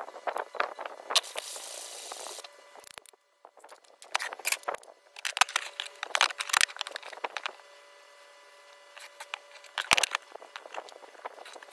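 Rubbing scrape of sandpaper for about the first two seconds. Then irregular light knocks, clicks and clatter as wooden handle-scale blanks and the steel axe tang are handled and set down on a wooden workbench.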